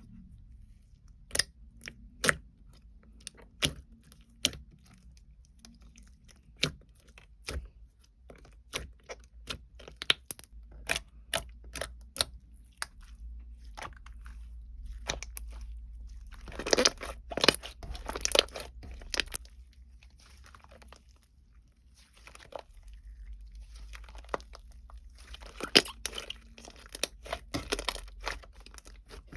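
Close, sharp crunching clicks, many in a row at irregular spacing, with two spells of crinkling rustle, one about halfway through and one near the end.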